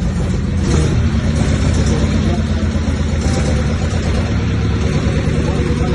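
A large engine running steadily with a low rumble. Brief patches of hiss come about a second in and again past three seconds.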